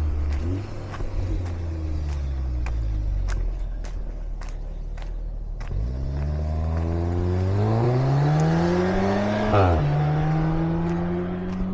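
Motor vehicle engine accelerating: its pitch climbs steadily for a few seconds, drops sharply at a gear change about two-thirds of the way in, then holds steady. Footsteps on the trail click through it.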